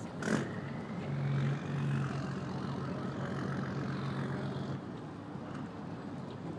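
An engine droning steadily with a low hum, which cuts off abruptly near the end, after a single sharp knock just after the start.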